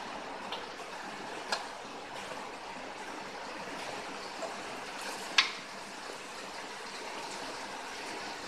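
Steady background hiss with two small, sharp clicks, about a second and a half in and again just past five seconds, the second louder: light knocks from a hand-made circuit board being handled and turned over under a helping-hands magnifier.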